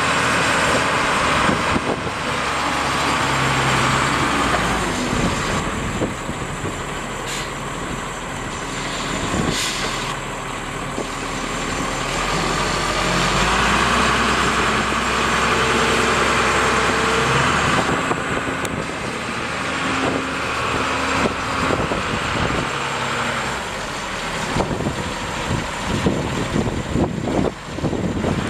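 Detroit six-cylinder turbo diesel of a Case 1085B Cruz Air wheel excavator running as the machine drives on its tyres, the engine note rising and falling with the throttle.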